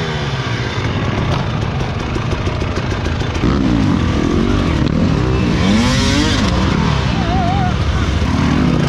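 Enduro dirt bike engines running and revving, their pitch rising and falling again and again; the revving gets louder about three and a half seconds in.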